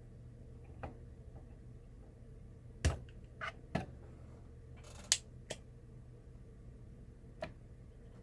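About seven small, sharp clicks and taps, scattered irregularly, from tools handled against a motherboard while desoldering a capacitor. A steady low hum runs underneath.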